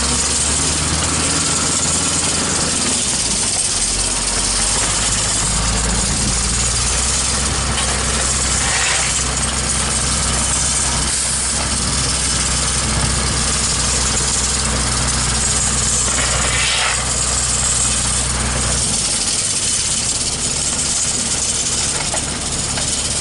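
Diesel truck engines idling, a low steady drone under a constant hiss; the deepest part of the drone drops away about three-quarters of the way through.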